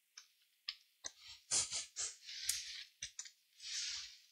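A few light clicks, then short scraping rustles, as a small BGA chip is handled and slid against the pad of a reballing holder.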